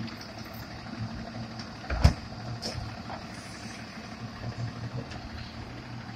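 Automated side-loader garbage truck idling while its hydraulic arm grabs a wheeled trash cart and starts to lift it. A single loud knock comes about two seconds in.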